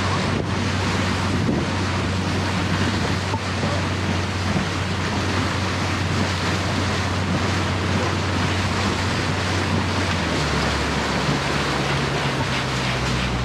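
Speedboat engine running steadily under a loud rush of wind on the microphone and water along the hull; the engine note drops lower about ten seconds in.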